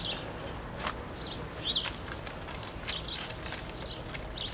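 Small birds chirping: short high chirps every second or so, with a few soft clicks in between.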